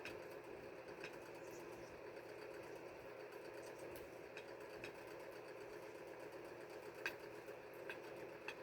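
A steady, quiet motor hum, with a few faint sharp clicks of chickens pecking food off a plate.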